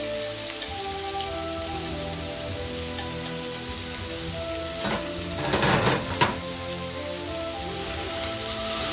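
Pork slices and chopped garlic sizzling steadily in a hot wok. About five seconds in, a spatula stirs through them, a louder rough scrape that ends in a sharp clack against the pan.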